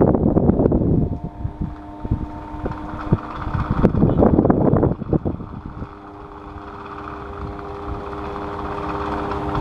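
Electric fan running with a steady motor hum, its airflow buffeting the microphone in loud gusts at the start and again about four seconds in.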